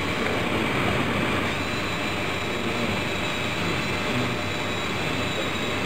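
Steady mechanical whirring with a thin high whine that comes in about a second and a half in, from the student-built gantry robot's small electric drive motor moving its gripper carriage along the rail.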